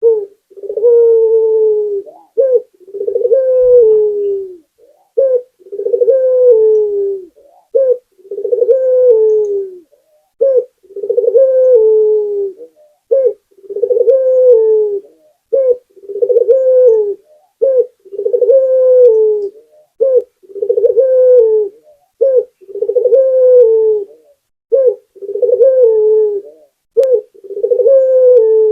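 Barbary dove (local puter) cooing steadily, repeating the same phrase about every two and a half seconds, each a short note followed by a long rolling coo that falls in pitch at its end.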